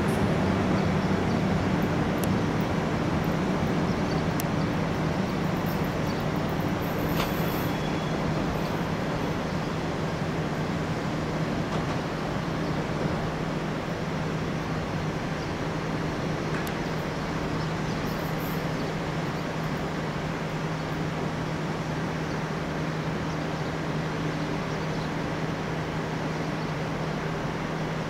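Electric-hauled passenger train of Corail carriages rolling away out of the station: an even wheel-and-rail rumble over a steady low hum, fading slowly as it goes, with a few light clicks from the track.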